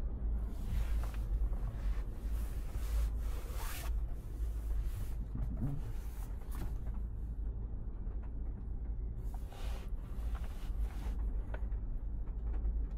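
2024 MG3 Full Hybrid+ on the move: a steady low road rumble, with several brief hissing swells rising and fading over it.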